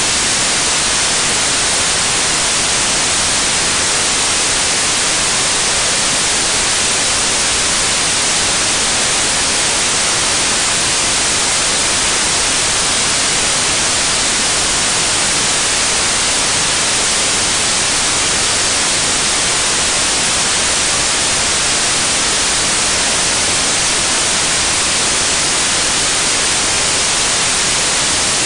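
Loud, steady static hiss like white noise, unchanging throughout, with no engine rhythm or other sound showing through.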